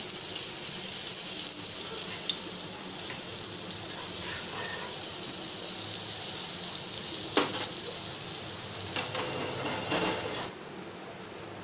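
Butter melting and sizzling in hot refined oil on a flat tawa: a steady high hiss with a few light crackles, cutting off suddenly near the end.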